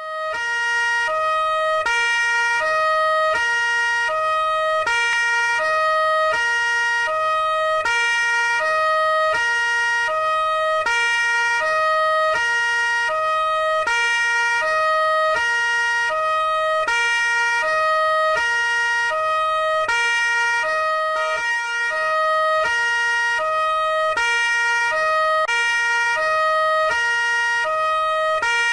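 Italian police car's two-tone siren, alternating between a low and a high note, each held about half a second, with a steady high tone underneath.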